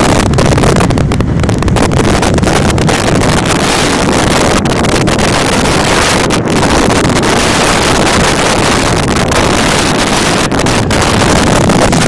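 Blizzard wind blowing hard across the microphone: loud, steady wind noise.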